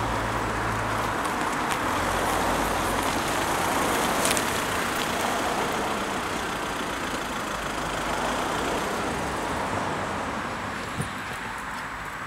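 Volkswagen Golf hatchback driving slowly onto a rough tarmac car park and pulling up, engine running and tyres rolling, the sound easing off gradually. A short click near the end as the driver's door is opened.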